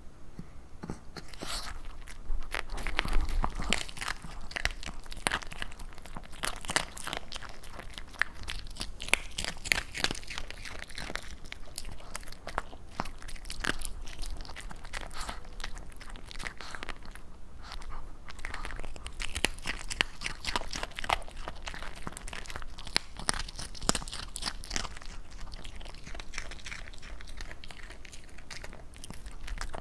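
Pomeranian crunching and chewing small treats right at the microphone: a quick, irregular run of crisp crunches that goes on almost without a break.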